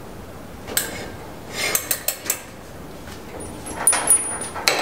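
Scattered metal clinks and clanks as a brake rotor and its adapters are fitted and tightened on an Accu-Turn brake lathe arbor. A brief thin high squeak comes about three and a half seconds in.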